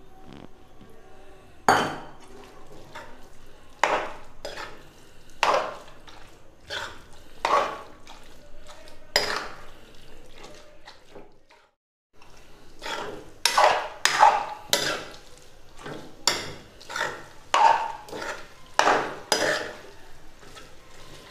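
A steel spoon stirring and scraping thick ground chana dal paste being roasted in ghee in a metal kadhai, with repeated uneven scrapes and knocks against the pan roughly once a second. The sound cuts out briefly about twelve seconds in.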